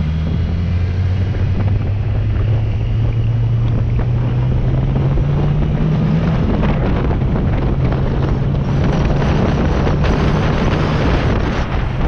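Sport motorcycle engine pulling away and accelerating, its pitch climbing, then dropping at a gear change about halfway through. Wind rushing over the microphone grows louder as speed builds.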